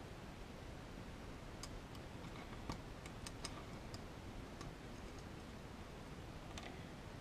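Faint, irregular light clicks of small metal parts handled by hand as a slot car's pickup shoes are adjusted: about eight over a few seconds, the sharpest near the middle, over a steady low hiss.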